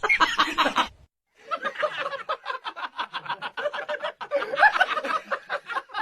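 A person laughing in a long run of rapid, breathy snickers, after a brief voice and a short break about a second in.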